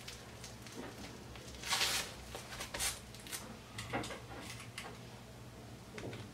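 Fabric rustling and light handling as padded cloth pieces are folded and pressed flat by hand, with a short louder rustle about two seconds in and a few small taps.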